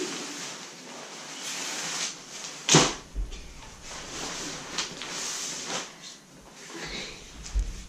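Nylon fabric of a Marmot Tungsten 2 backpacking tent rustling and crinkling as it is pulled out and spread flat on a tile floor. A sharp knock comes about three seconds in, and a few softer knocks near the end.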